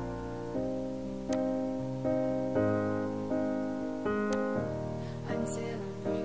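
Slow, gentle piano music: notes struck one after another, each left to ring and fade.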